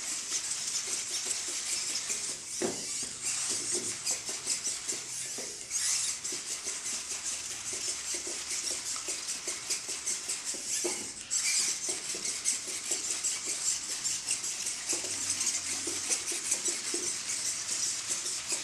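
Servo motors of the Pavlov Mini, a small 3D-printed quadruped robot with belt-driven legs, buzzing and chattering steadily as it walks, with its feet tapping irregularly on a wooden parquet floor.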